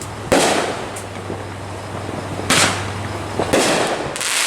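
Fireworks going off: four loud bangs, about a third of a second in, around two and a half seconds, and twice near the end, each trailing off with crackle. A low steady hum runs under the first three seconds.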